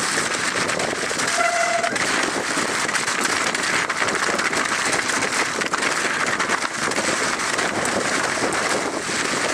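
Moots MootoX YBB 29er mountain bike rolling fast down a rocky trail covered in wet hail: a steady rush of knobby tyres over slush and stones, with the bike rattling and clattering throughout. A brief squeak sounds about one and a half seconds in.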